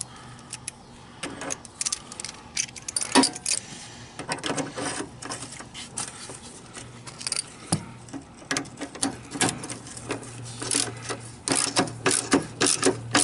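Ratchet wrench clicking in short quick runs, with metallic clinks, as the deck hanger bolt on a riding mower is tightened.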